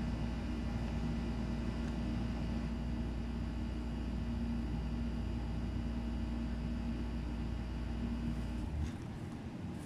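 A steady machine hum with several fixed tones and a deep low drone, which drops away near the end just after a brief click.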